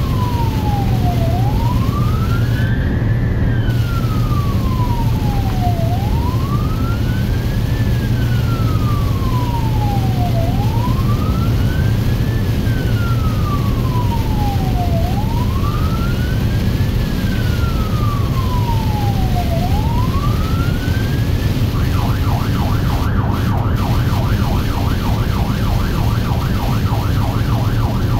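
Emergency vehicle's electronic siren heard from inside its cab while running code 3. It sounds a slow wail, rising and falling about every four and a half seconds, then switches about three-quarters of the way through to a fast warble. A steady low engine and road drone runs underneath.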